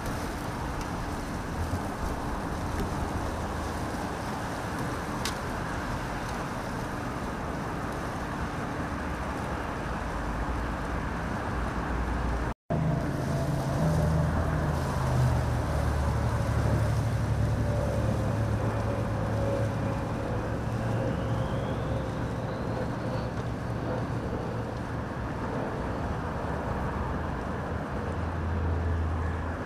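Road traffic on a bridge, a steady wash of passing vehicles. After a brief dropout about twelve seconds in, a vehicle engine runs close by, its pitch slowly falling.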